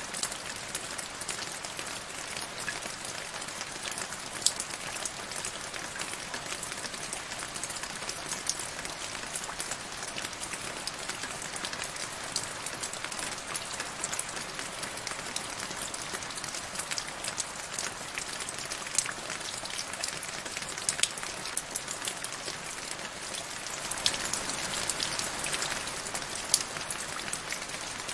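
Rain falling into a shallow puddle on grass: a steady patter with many single drops ticking on the water, getting a little heavier for a couple of seconds near the end.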